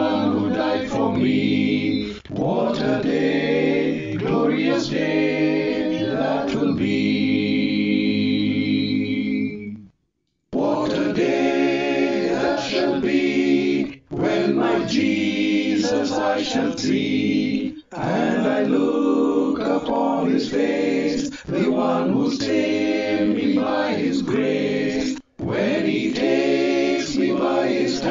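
A men's choir sings a gospel hymn in harmony without instruments. A long held chord cuts off sharply about ten seconds in, and after a half-second gap the singing picks up again.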